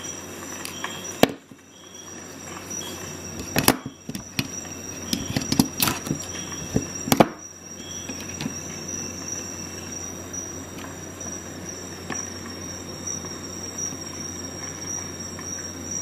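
Sharp metallic clicks of a Leatherman Charge Plus multi-tool being handled and set down, about six of them in the first half. After that only a steady background hiss with a constant high whine remains.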